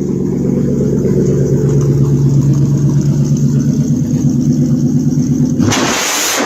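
Car engine running with a lumpy, pulsing idle and a slight rise in revs. Near the end it gives way to a short burst of hissing noise.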